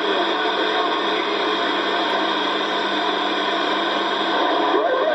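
CB radio receiver hissing with static and a jumble of faint, garbled distant stations and steady whistling tones under it, with no clear voice coming through.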